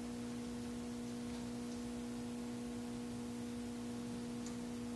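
Steady electrical hum: one low tone with a fainter tone an octave above it, unchanging throughout.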